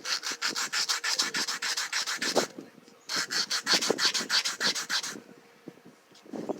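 Homemade lock pick rubbed back and forth on sandpaper in quick, even strokes, about eight a second, in two runs with a short pause between: hand-honing the pick after grinding.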